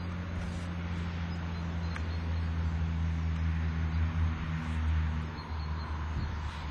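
A steady low hum over outdoor background noise.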